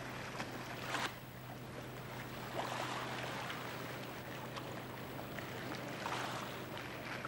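Steady rushing of the Rhine Falls and the fast river water, with a constant low hum underneath.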